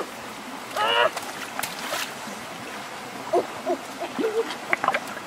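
Shallow stream water gurgling and sloshing as hands grope among the stones, with a few sharp clicks of stones knocking. About a second in, a short wavering hoot-like call is the loudest sound.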